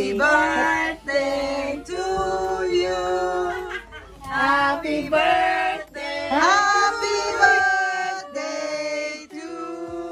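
Voices singing a melody in phrases of held notes.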